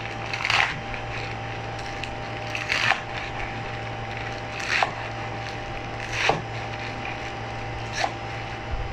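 Kitchen knife slicing through mustard green stalks and leaves onto a wooden cutting board: five slow single cuts, each a brief crunch ending in a knock of the blade on the board.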